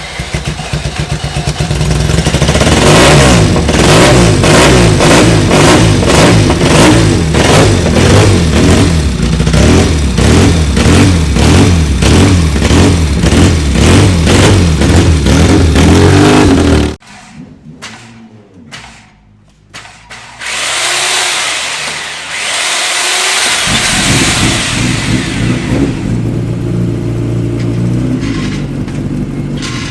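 Classic air-cooled racing motorcycle engine running loud and being revved, cutting off abruptly about two-thirds of the way through. After a brief lull another racing engine revs up, then keeps running lower and unevenly.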